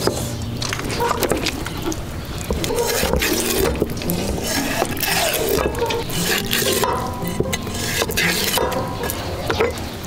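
Cleaver scraping the scales off a large whole fish on a wet wooden chopping block: a series of short, irregular scraping strokes.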